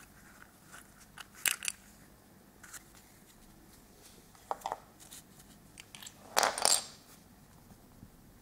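Small plastic pieces handled: clicks and taps as a plastic Kinder Surprise capsule is opened and its little plastic toy taken out and set down on a wooden table, with a louder short clatter a little past halfway.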